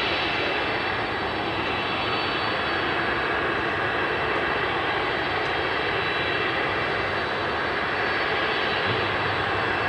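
Boeing 777-300ER's GE90 turbofan engines running at high thrust at the start of the take-off roll: a steady jet rush with a high whine over it.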